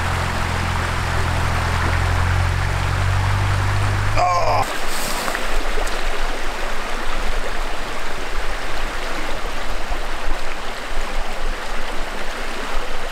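Small rocky woodland stream running: a steady rush of water over stones. A low steady hum lies under it for about the first four seconds, then stops abruptly.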